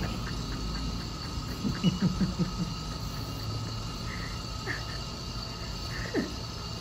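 Dental saliva ejector sucking in the patient's mouth, a steady hiss, with a few soft low knocks about two seconds in.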